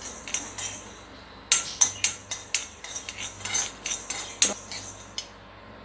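Metal spoon scraping and clinking against an iron kadai as mustard and fenugreek seeds are stirred and dry-roasted without oil. It comes as irregular scrapes and taps, with a short pause about a second in.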